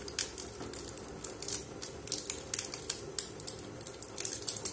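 A small plastic saffron box and its wrapping being handled and opened by hand: a run of irregular sharp clicks and crackles, clustering more densely near the end.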